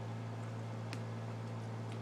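Mini pig chewing ice cubes: a few short, sharp crunches and clicks over a steady low hum.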